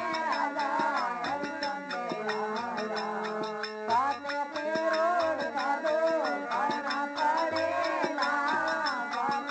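Rajasthani Marwari bhajan music: a melody that bends and glides like singing, over steady held tones and a fast, even percussion beat.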